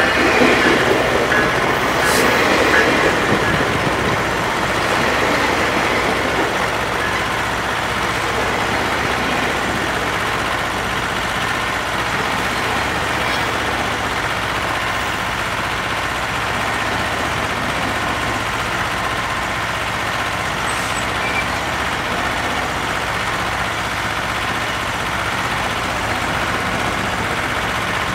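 Heavy diesel engines running steadily, a dense, even rumble and hiss that is a little louder in the first few seconds.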